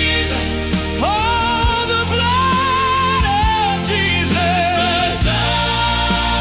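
Gospel song: a lead voice sings a wavering melody over sustained keyboard chords, bass and a steady drum beat.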